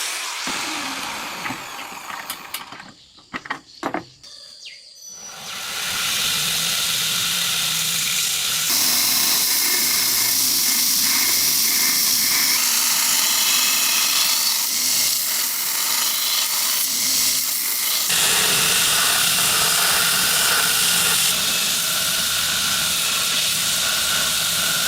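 A few light knocks, then a power tool starts about six seconds in and runs steadily with a bright whirring hiss.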